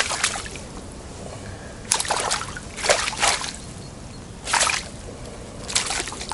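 Water splashing and sloshing in about five separate bursts, roughly one a second, as a fish keepnet is pulled out of the river.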